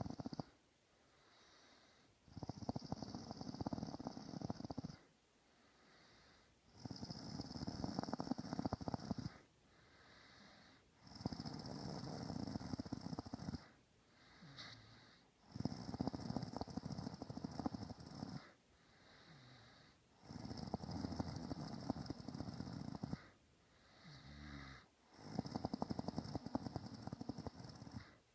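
A person snoring in sleep: six rattling snores at an even rhythm, about one every four to five seconds, with quieter breaths between.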